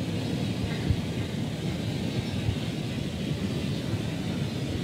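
Steady low rumble and hiss of an old recording's background noise, with one faint click about a second in.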